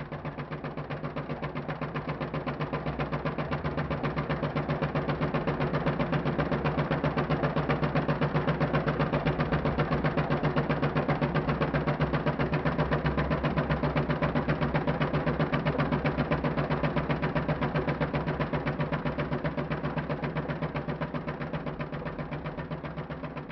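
Philips DP70 35/70 mm film projector running, its intermittent mechanism clattering in a fast, even rhythm over a steady motor hum; the sound swells up over the first seconds and fades near the end.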